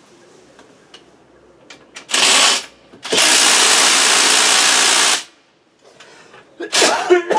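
An impact wrench run in short loud bursts as an engine bolt is driven home: a brief burst about two seconds in, a longer run of about two seconds, and another burst starting near the end.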